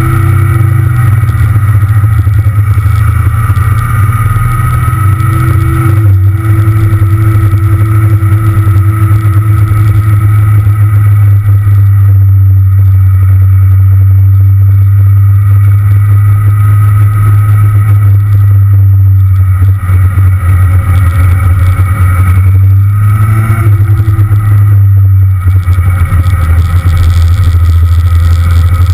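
Kawasaki Z750 inline-four motorcycle engine running on the move, with a loud low rumble over it, typical of wind on an onboard microphone. The engine pitch rises near the start and again about three quarters of the way through, with a few brief drops between, like gear changes.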